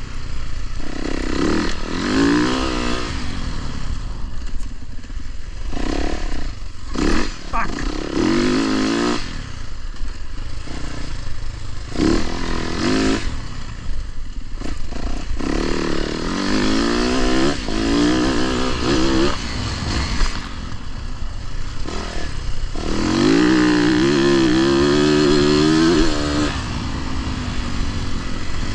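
Dirt bike engine being ridden, revving up and falling back again and again as the throttle opens and closes.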